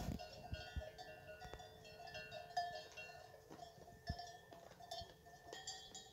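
Several cowbells clanking irregularly at different pitches as the cattle move about, with a few low knocks among them.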